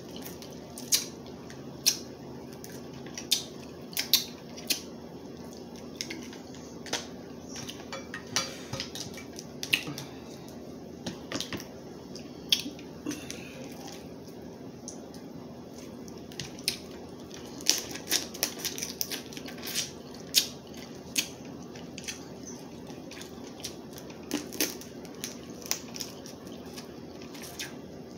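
Crab leg shells being cracked and snapped apart by hand: a string of sharp, irregular cracks and clicks, some in quick clusters. A steady low hum sits underneath.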